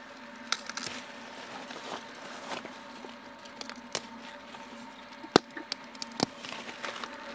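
Leafy spinach stalks being snapped and torn off the plant by hand: scattered sharp crackling snaps, the loudest about five and a half seconds in, over a steady faint hum.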